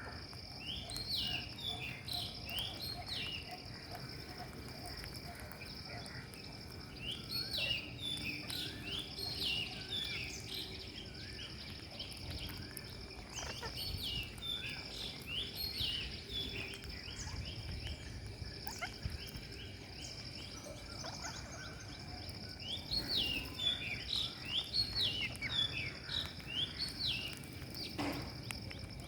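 Rose-ringed parakeets calling in bursts of short, sharp chirps, several clusters with gaps between, over a steady high insect drone.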